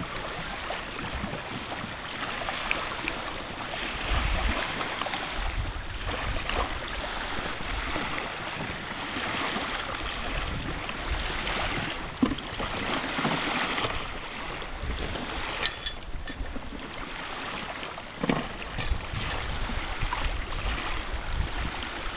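Steady wind and water noise, with gusts of wind buffeting the microphone and a few light knocks.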